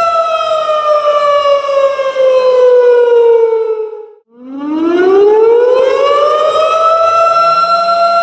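Tornado warning siren wailing. Its steady tone slides down in pitch for about four seconds, almost dies away, then glides back up over the next few seconds and holds steady again.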